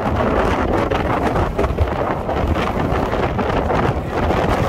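Wind blowing across the microphone: a steady rumbling buffet with a noisy hiss over it.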